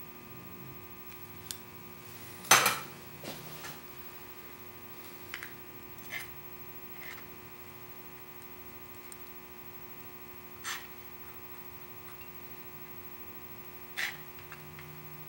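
Steady electrical hum, with a scattering of light metal knocks and clicks as a steel square is handled and laid against the cast-iron sole of a block plane. The loudest is a single knock about two and a half seconds in.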